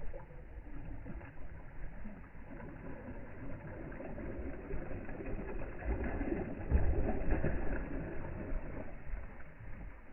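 Flock of gulls calling over the water, with wind rumbling on the microphone, loudest about seven seconds in.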